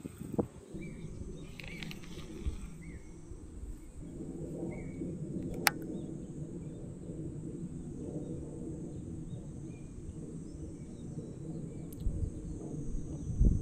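Outdoor ambience: a continuous low rumbling noise under a steady high-pitched insect drone, with a few faint short bird chirps. Two sharp clicks, about half a second in and about six seconds in.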